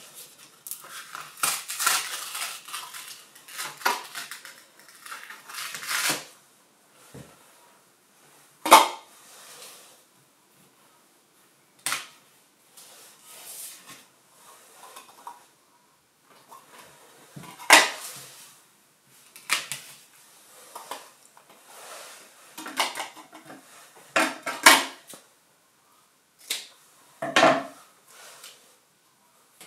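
Clear plastic plates being rocked side to side and pulled off a poster board held with ghost tape. Irregular plastic clicks and knocks come with rustling of the board, and the sharpest knocks fall about 9, 18 and 25 seconds in.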